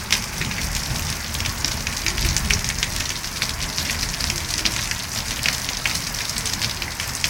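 Rain falling steadily: a continuous hiss with many separate drops striking sharply throughout.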